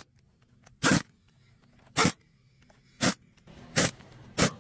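Pneumatic impact wrench fired in short bursts, about one a second, six times, on a bolt of a truck steering gearbox.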